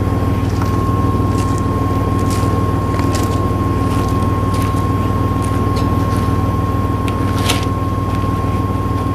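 Vehicle engine running steadily, with a constant high-pitched whine and scattered light clicks over it.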